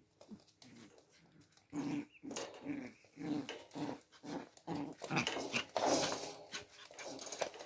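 Young puppies play-growling in a run of short growls as they wrestle, with scuffling on the floor and blanket that is loudest about five to six seconds in.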